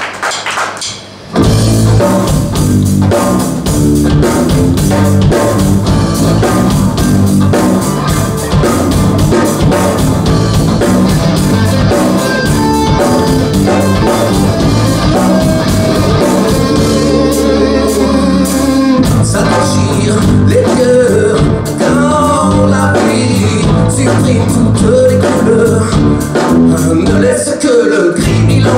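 Live fusion-rock band kicking into a song about a second and a half in, with drum kit, bass and electric guitars playing loud and a male voice singing over them in the second half. The sound is picked up by the camera's own microphone.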